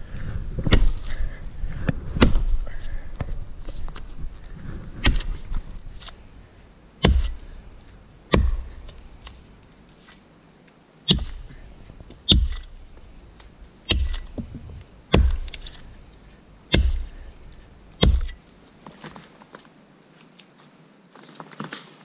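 An axe chopping firewood: a string of about nine sharp, heavy blows, a second or more apart, after a busier stretch of knocking and rustling in the first few seconds.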